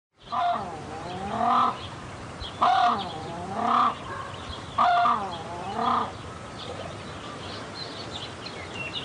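Crested grebes calling: six loud calls about a second apart, followed by fainter high chirps over the last few seconds.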